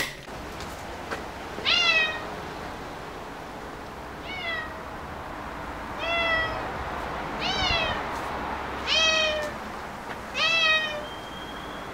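Domestic cat meowing six times, about one and a half seconds apart, each meow falling in pitch.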